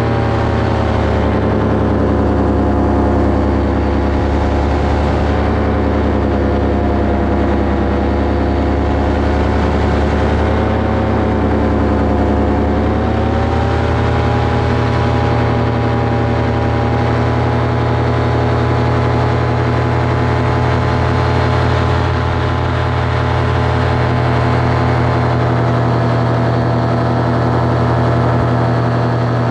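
Paramotor's two-stroke engine and propeller running steadily in flight, loud and close. Its pitch dips slightly about twelve seconds in and then comes back up.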